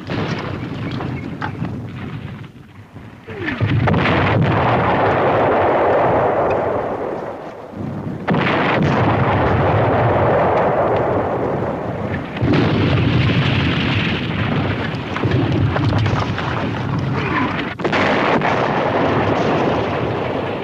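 Battlefield shell explosions, about four heavy blasts a few seconds apart, each starting suddenly and rumbling on for several seconds.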